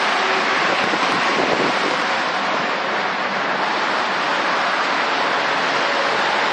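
Steady roar of dense freeway traffic: tyre and engine noise of many vehicles blending into one continuous rush.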